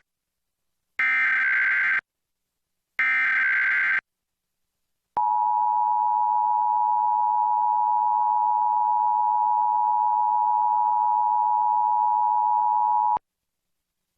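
Emergency Alert System test signal: two one-second bursts of the SAME header's buzzy digital data tones, two seconds apart. After a short gap comes the two-tone attention signal, a steady pair of tones held for about eight seconds before cutting off abruptly.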